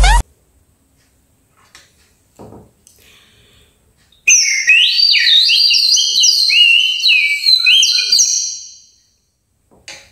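High-pitched whistling in a quick warbling run of short notes that step up and down, lasting about four seconds and fading out at the end.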